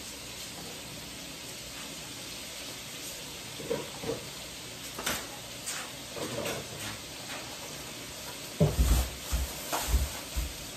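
Food frying with a steady sizzle, over which kitchen knocks and clunks sound now and then, ending in a cluster of heavy thumps near the end.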